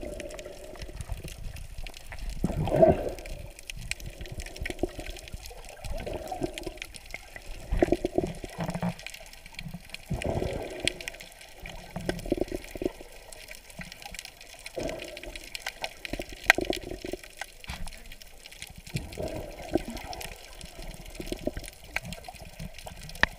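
Muffled water sounds picked up by a camera underwater: irregular swells of sloshing and bubbling every couple of seconds, with scattered sharp clicks.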